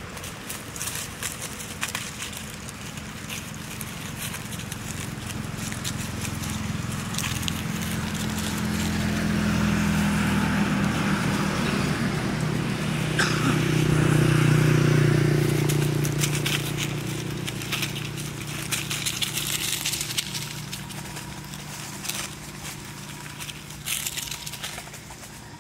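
A motor vehicle's engine passes by, growing to its loudest about halfway through and then fading, its hum dropping in pitch as it goes. Dry leaf litter crackles and rustles throughout.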